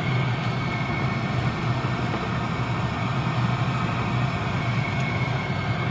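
12-volt diesel air heater running at full power: a steady low hum from its burner and blower fan, with a faint constant high whine over it.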